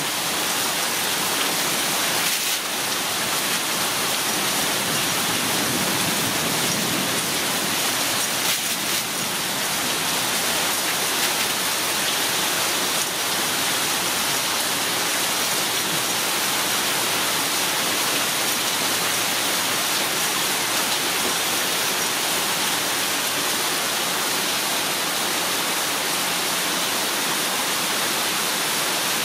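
Steady rain, an even hiss that holds at one level throughout.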